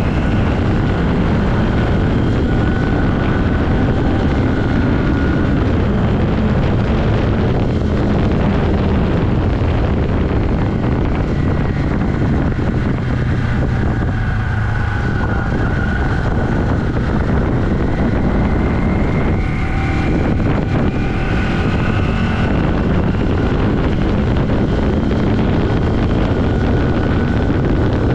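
1982 Yamaha XS400 Maxim's parallel-twin engine running while the bike is under way, with wind rushing over the microphone. The engine's pitch rises and falls a few times as the revs change.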